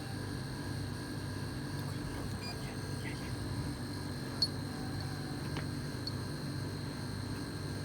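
Steady electrical hum with a few faint ticks and one short, sharp click about four and a half seconds in.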